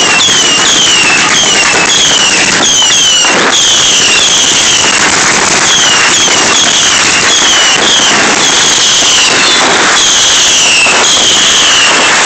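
Consumer firework cake firing a rapid string of whistling shots, each a short falling whistle, over a constant hiss of burning sparks, with a few sharp bangs mixed in.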